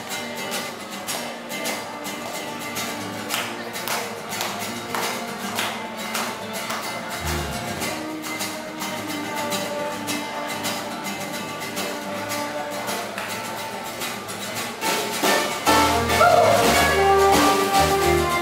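A live band plays an instrumental intro of strummed acoustic guitars with electric guitar and keyboard. About 15 seconds in the full band comes in, louder, with deep bass notes.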